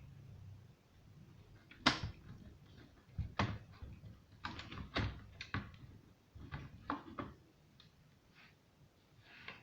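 A series of irregular sharp clicks and light knocks, about a dozen of them, as small parts and the casing of an old radio are handled; they stop near the end.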